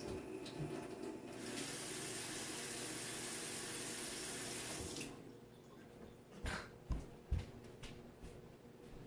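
Water running from a tap as a steady hiss for about three and a half seconds, then cut off, followed by a few light knocks.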